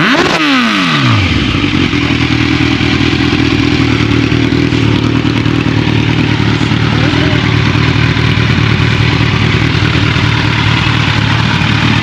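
Kawasaki Z1000R's inline-four engine through a Yoshimura exhaust: the revs fall away quickly in the first second, then it runs steadily at low revs.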